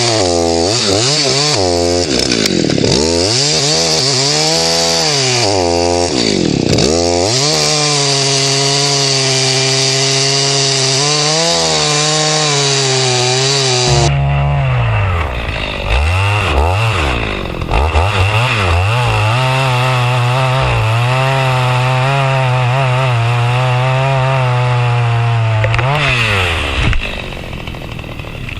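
Two-stroke chainsaw running at high revs while cutting wood. Its engine note sags and recovers several times as the chain loads up. Near the end it comes off the throttle and the sound drops away.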